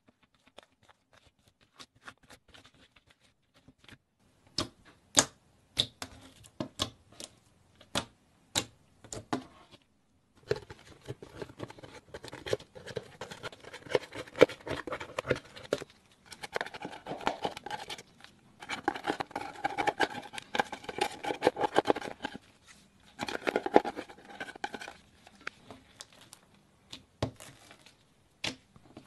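Pressed eyeshadow being scraped out of its palette pans with a spatula and crushed into slime. There are a few separate sharp crackles at first, then dense crackling and scratching from about ten seconds in.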